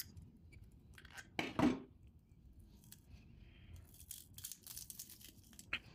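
Tin snips biting through the copper windings of an electric motor's stator: a few sharp snips and clicks, the strongest cut about a second and a half in, with faint scraping of metal being handled between them.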